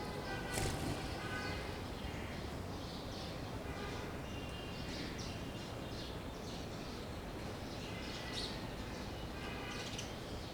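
Small birds chirping on and off, with short bursts of pitched calls, over steady background noise.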